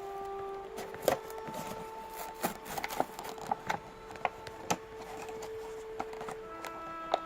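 Toy packaging being handled and opened, a string of sharp clicks and rubs, over soft orchestral music with long held notes.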